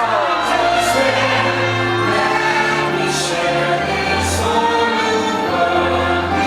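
Orchestral show music with a choir singing long held notes, played loud over the park's loudspeakers for the fireworks show.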